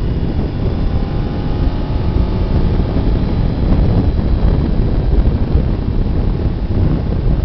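Heavy wind buffeting on the microphone of a Suzuki GSX-R sport bike riding at speed, with the bike's inline-four engine running faintly underneath, its pitch rising a little about a second in.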